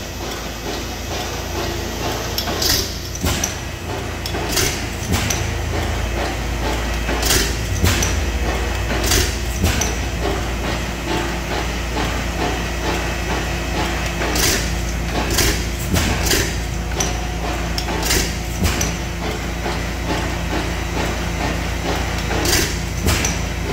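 15 hp Pattin Bros Ekonomy horizontal single-cylinder gas engine running slowly. It fires with sharp, irregular exhaust cracks, often two close together, every couple of seconds, over a steady low hum.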